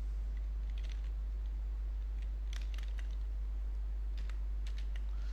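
Faint computer keyboard keystrokes, a few scattered clicks, over a steady low hum.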